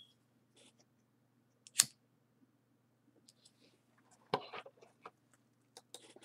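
A few quiet clicks from a computer mouse while the map view is dragged. One sharp click about two seconds in is the loudest, with a short scuffling clatter around four and a half seconds, over a faint steady low hum.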